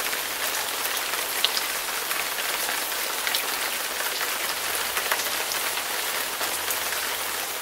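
Heavy rain falling steadily, with a dense hiss and many sharp drop ticks.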